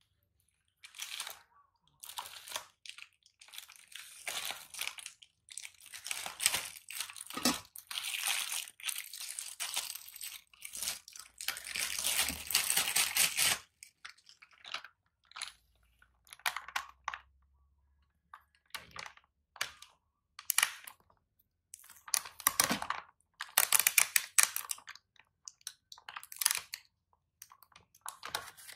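Crinkly rustling of a baby monkey's shiny dress and diaper as it is handled and squirms on a lap, in irregular bursts that come thick for several seconds from about four seconds in, then shorter and more spaced out.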